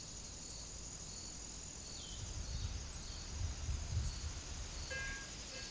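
Quiet outdoor meadow ambience: a steady high chirring of insects, with low gusts of wind buffeting the microphone in the middle.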